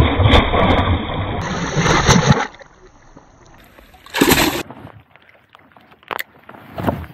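A largemouth bass thrashing and splashing at the surface as it is released by hand beside the boat: loud splashing for about two and a half seconds, then a shorter burst about four seconds in.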